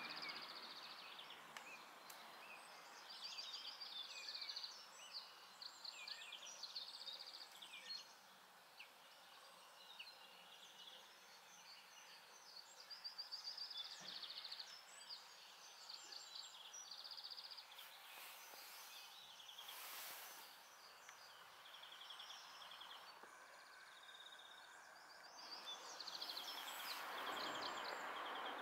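Faint songbirds singing in short, rapid trills, several overlapping, over a steady outdoor hiss.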